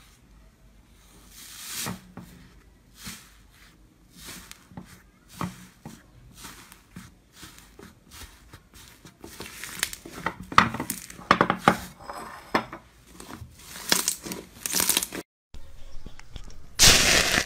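Hands squeezing and tearing into thick, fluffy slime, giving irregular crackling and tearing sounds that grow louder about ten seconds in. Near the end, after a brief break, a louder, denser crackle comes from a tub of foamy, bubbly slime.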